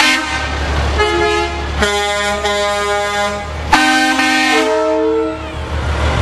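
Vehicle horns honking in several separate blasts, the longest about a second and a half, the last one dropping in pitch partway through before it fades.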